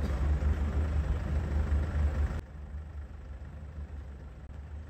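Motor yacht's engines running with a steady low rumble while it manoeuvres to dock. About halfway through the sound drops suddenly to a quieter low rumble.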